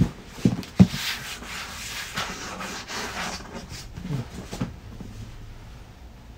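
Packaging being handled and slid against itself, giving a rubbing, scraping noise for a few seconds after a few knocks in the first second.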